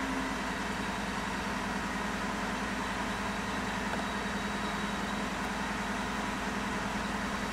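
Supercharged Ford F-150 engine idling steadily, heard from inside the cab as an even low hum.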